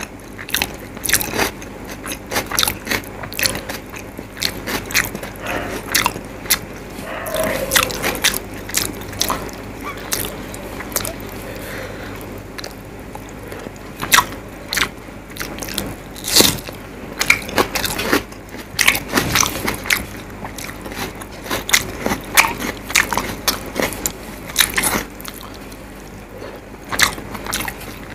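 Close-miked chewing and lip-smacking of a person eating rice and fish curry by hand, a dense run of sharp, irregular wet mouth clicks, with fingers mixing rice on the plate.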